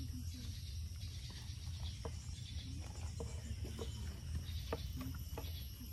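Faint insect chorus over a low steady rumble, with scattered soft clicks and taps of a raw marinated chicken being handled and pushed onto a green bamboo skewer.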